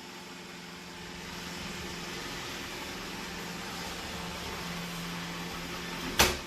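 Roomba robot vacuum running, a steady whir and hum of its vacuum motor and brushes that grows a little louder about a second in. A single sharp knock near the end.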